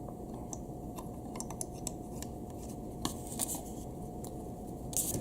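Small plastic parts of a GoPro clamp mount being handled, giving scattered light clicks and scrapes over a steady low hum, with a louder rustle near the end.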